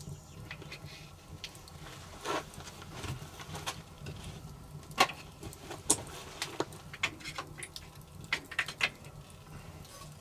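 Irregular sharp clicks, snaps and knocks by a small open wood fire: the fire crackling and wood being handled. The two loudest snaps come about five and six seconds in.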